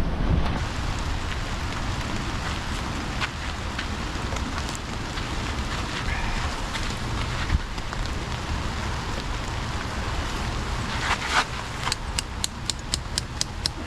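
Steady rain with wind rumbling on the microphone, dotted with scattered sharp drips or ticks. Near the end comes a quick run of about ten evenly spaced clicks.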